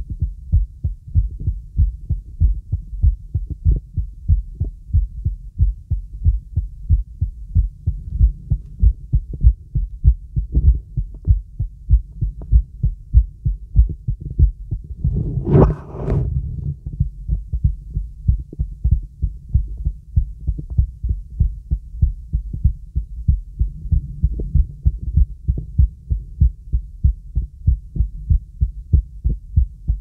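A person's heartbeat heard through the diaphragm of an acoustic stethoscope: a steady, even lub-dub rhythm of soft low thumps. About halfway through, a brief scratchy noise from the chestpiece shifting on skin or clothing cuts in over the beats.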